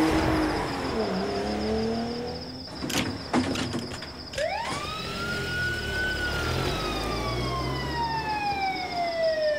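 A car engine revving as it drives off, its pitch rising. Then a few sharp clicks, and an ambulance siren wailing: a quick rise in pitch followed by a long slow fall, beginning to rise again at the end.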